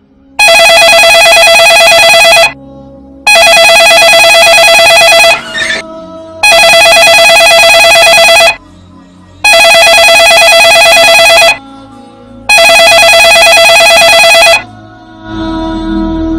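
Mobile phone ringing: five loud electronic rings of about two seconds each, with short pauses between them. Soft music comes in near the end.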